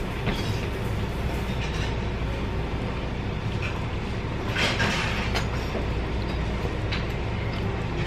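Steady low rumble of restaurant background noise, with a few brief clinks or knocks near the middle.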